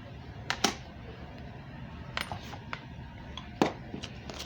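Small metal parts, such as nuts and bolts, clinking and knocking together as they are handled, in a few sharp separate clicks. The loudest knock comes near the end.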